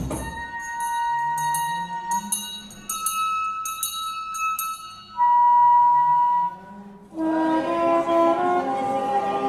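Contemporary chamber music for viola, reed instrument and electronic playback: long held single notes over a low sliding line, then a loud held high note. About seven seconds in, a dense layer of many sustained notes comes in.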